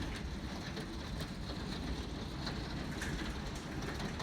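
Hailstorm: pea-sized hail and rain pattering down in scattered small ticks over a steady rush, with strong wind rumbling on the microphone.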